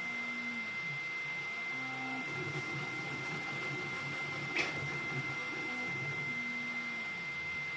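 Ender-3 V3 3D printer printing at high speed: its stepper motors hum in short segments that jump between pitches as the moves change, over a steady high whine. There is one sharp click about four and a half seconds in.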